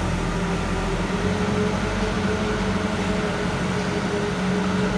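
Volvo L45G wheel loader's diesel engine running steadily at low revs, an even drone with no revving, under a steady hiss.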